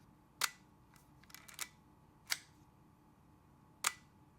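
Leica MP film rangefinder's mechanical cloth focal-plane shutter being fired: sharp single clicks a second or two apart, with a short run of softer clicks between the first two.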